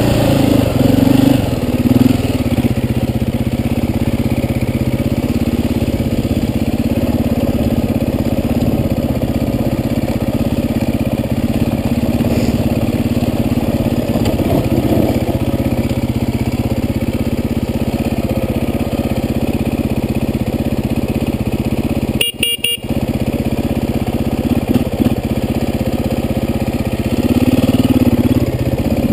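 Off-road dirt bike engine running steadily as it is ridden along a trail. The sound cuts out for about half a second roughly three-quarters of the way through, and the engine gets a little louder near the end.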